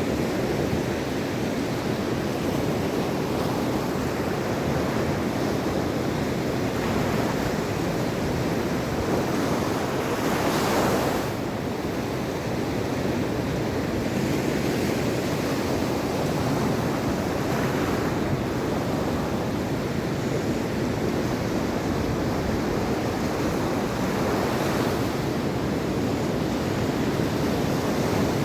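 Mediterranean Sea waves washing onto the shore in a steady surf wash, with a louder wave breaking about ten seconds in and softer ones later. Wind rumbles on the microphone underneath.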